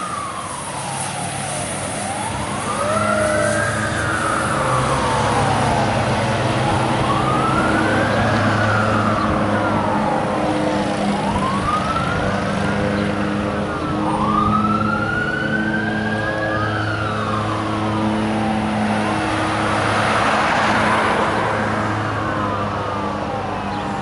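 Fire apparatus sirens wailing, rising and falling in pitch about every four seconds, with two sirens overlapping near the middle, over a steady low drone.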